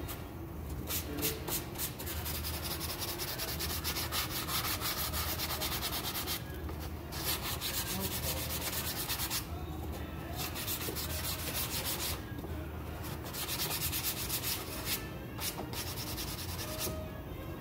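Rapid back-and-forth rubbing strokes on the felt brim of a beaver felt hat, in bouts of a few seconds broken by short pauses.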